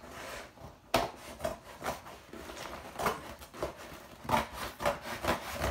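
Scissors cutting through the packing tape on a cardboard box, with crinkling and scraping of tape and cardboard. It comes as a run of irregular snips and scrapes, the sharpest about a second in.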